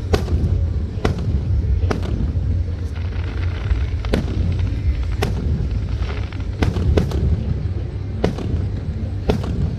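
Fireworks going off in sharp bangs, roughly one a second and irregular, some in quick pairs, over a steady low rumble.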